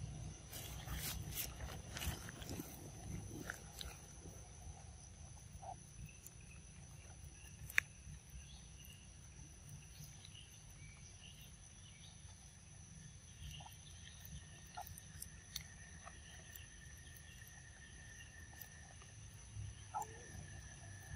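A macaque eating ripe mango: wet smacks and bites, clustered in the first few seconds and scattered after, with one sharp click about eight seconds in. Under it, a steady high-pitched drone and a low rumble.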